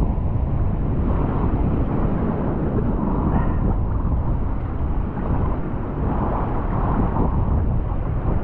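Wind buffeting the microphone over the steady wash of choppy open sea, with surf breaking on rocks in swells that rise and fall every second or two.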